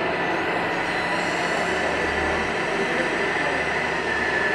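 Steady whirring of a radio-controlled model's electric hydraulic pump and motors as the loader raises and tips its bucket over the dump truck's bed, with a thin high whine that grows louder near the end.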